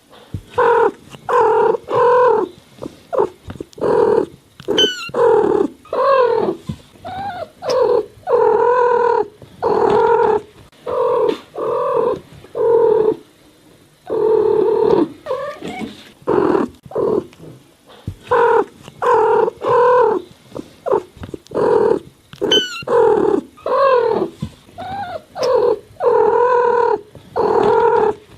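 Cats meowing in a quick string of short, repeated meows, many falling in pitch, with a couple of brief pauses.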